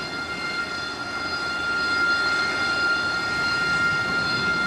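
Harrier jump jet's Pegasus turbofan running on the carrier deck: a steady high whine over the rush of jet exhaust, growing louder over the first two seconds as the jet moves close past.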